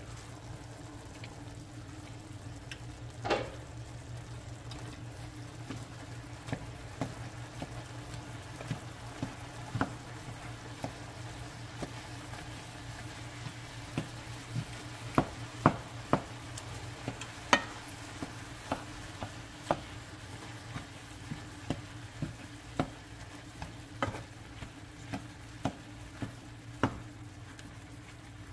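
Ground pork sizzling in a nonstick skillet as a wooden spatula stirs and scrapes it, with frequent sharp taps of the spatula against the pan and a steady low hum underneath. There is one louder clank about three seconds in.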